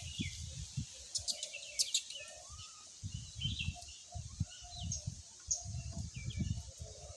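Birds chirping in short, scattered calls over an uneven low rumble.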